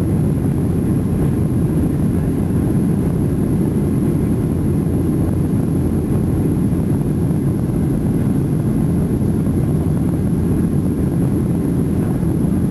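Steady cabin rumble of a Boeing 737-800 climbing out just after take-off: its CFM56-7B turbofan engines and the rush of air over the fuselage.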